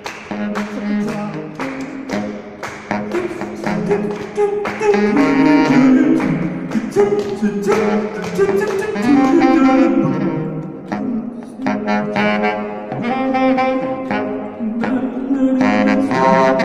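Saxophone improvising in a jazz style: quick sharp taps in the first few seconds, then longer held notes that swell and fall back.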